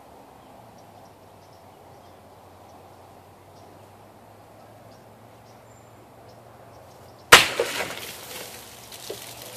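About seven seconds in, a large chopper knife strikes and slices through a water-filled plastic jug in one sharp chop. Water splashes and spatters down over the next second or two.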